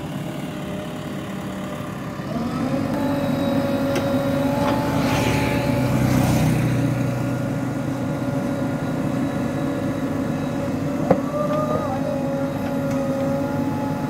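JCB 3DX Super backhoe loader's diesel engine running steadily, picking up load and getting louder about two seconds in as the backhoe arm is worked hydraulically. A brief hiss comes around five seconds in, and there is a single sharp knock near eleven seconds.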